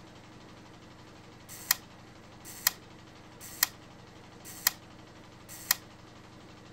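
Camera shutter clicking five times, about once a second, each click led in by a brief softer sound, over a faint steady hum.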